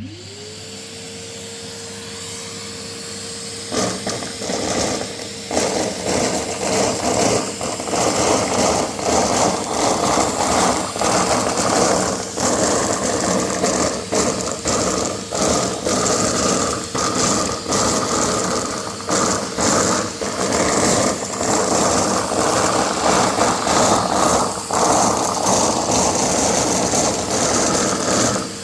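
Vacuum cleaner switched on: its motor rises in pitch and settles into a steady hum. About four seconds in it starts sucking up paper confetti, and the pieces rattle and tick continuously through the nozzle over the louder motor noise.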